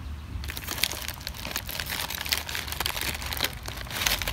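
Crinkling and irregular light clicks of small pieces of costume jewelry being handled and sorted, with a low steady hum underneath.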